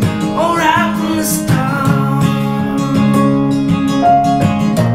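Acoustic guitar strumming chords with keyboard accompaniment in an instrumental stretch of a song, with a held, wavering sung note trailing off in the first second.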